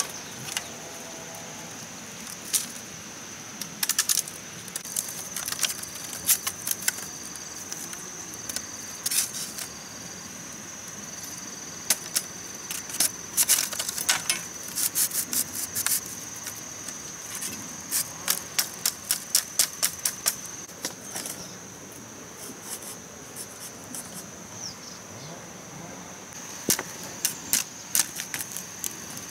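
Split bamboo strips clacking and clicking as they are woven into a mat, with sharp taps of a machete on the bamboo, in irregular clusters with a quick run of regular taps partway through. A steady high insect drone runs underneath.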